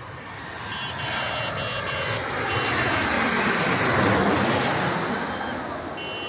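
Aeroplane on its landing approach passing low overhead: the engine noise swells to a peak a little past halfway, drops in pitch as it passes, then starts to fade.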